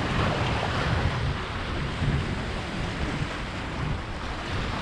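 Steady wind buffeting the microphone over the wash of surf against a rock jetty.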